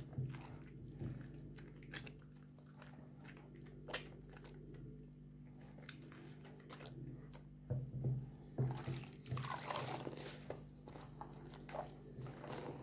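Wet hands lathering a bar of soap in a basin of soapy water: soft squishing, crackling foam and small splashes. It grows busier and louder about eight seconds in.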